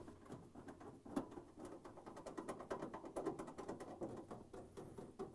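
Faint light clicks and scrapes of a quarter-inch nut driver backing out the screws that hold a refrigerator's evaporator cover.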